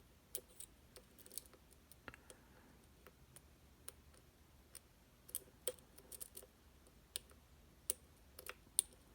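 M&C Condor high-security lock being picked: faint, irregular clicks and ticks of the pick and tension tool working the pins and sliders, coming more often in the second half.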